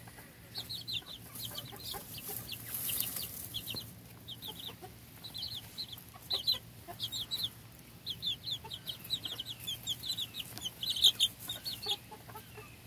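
Young chickens peeping in quick strings of short, high chirps as they peck at frozen watermelon.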